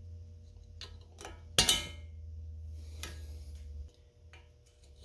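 Snap-ring pliers and the steel bearing snap ring clicking and clinking against the steering knuckle's bearing bore as the ring is squeezed and worked out, a few scattered clicks with one louder clink that rings briefly about a second and a half in. A low hum runs underneath until about four seconds in.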